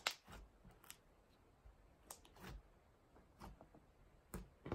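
Thick, glossy DIY clay slime being pressed and kneaded by hand on a tabletop while the clay is mixed in, giving faint scattered clicks and small pops, the sharpest right at the start and near the end.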